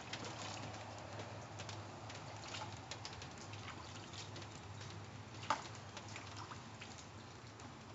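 Light rain falling, with scattered drips and small ticks of water, and one sharper tap a little past halfway.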